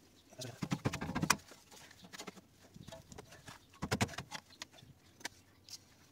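Irregular metal clinks and knocks of hand tools working on rusted brake parts, clustered about a second in and again about four seconds in.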